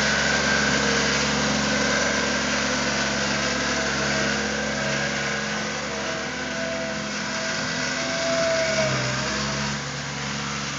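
Skid-steer loader engine running steadily, with a thin whine that wavers in pitch in the second half.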